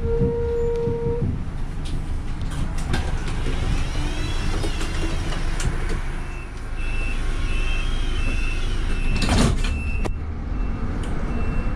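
Van Hool A300 city bus heard from inside, its engine rumbling steadily while it stands at a stop. An intermittent high beeping sounds in the second half. About nine seconds in comes a loud pneumatic hiss from the door gear, followed by a knock as the doors shut.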